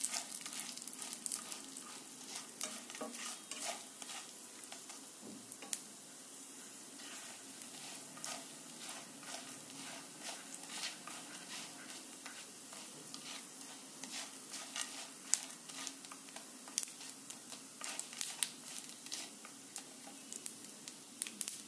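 Urad and chana dal with mustard seeds and curry leaves sizzling in a little oil in a nonstick pan, being lightly fried until reddish while stirred with a plastic spatula. A steady sizzle runs under frequent short clicks and scrapes, which come thicker in the second half.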